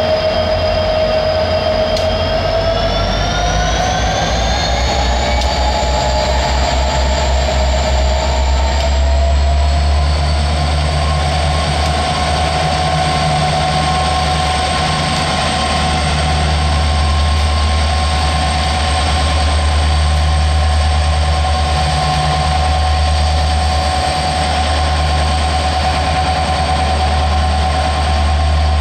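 Diesel-electric freight locomotives led by an EMD SD60 working at low speed: a deep steady engine rumble with a high whine that rises in pitch over the first ten seconds as the engines load up, then holds steady.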